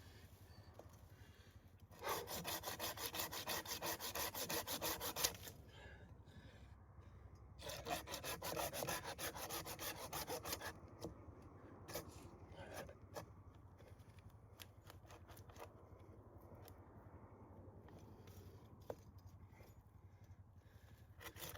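Hand saw cutting through wood in two bouts of quick back-and-forth strokes, each about three seconds long, with a few light knocks and clicks between them.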